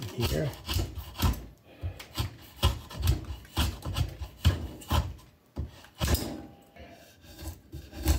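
A vintage Worth drawknife pulled across a piece of wood in a series of short strokes, one or two a second, each stroke scraping and peeling wood shavings off the block.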